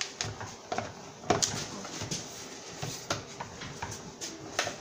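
Hard plastic steering-column halves of a toy ride-on ATV being pressed and knocked together by hand: scattered clicks and knocks, the loudest a little over a second in.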